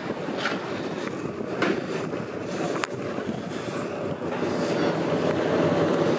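A passenger ferry's engines running with a steady rumble, growing louder near the end as a steady hum comes up; a few light clicks over it.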